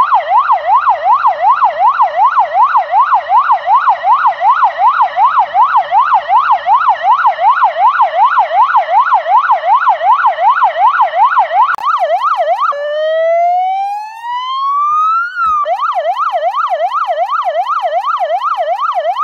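Police car siren on the yelp setting, its pitch sweeping quickly up and down about three times a second. About two-thirds of the way through it switches to a slow rising wail for about three seconds, then drops back into the fast yelp.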